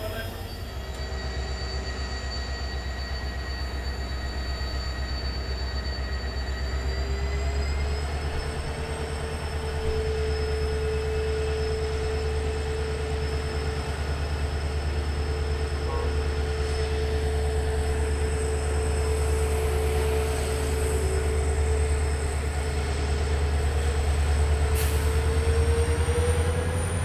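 Passenger train hauled by a WDP4 diesel locomotive, heard from on board while running: a steady low rumble and hum, growing louder. Whining tones rise in pitch about eight seconds in and again near the end.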